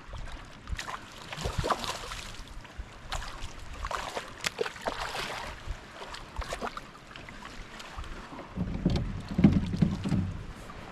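Water splashing and knocking around a small fishing kayak, in short scattered bursts, with a run of low thumps near the end that is the loudest part.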